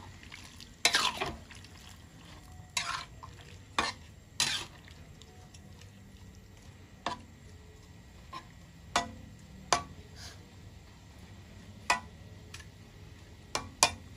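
Metal spatula stirring a thick coconut-milk potato stew in a wok, scraping and clinking against the pan in irregular strokes. There are about a dozen of them, the longest scrapes in the first few seconds.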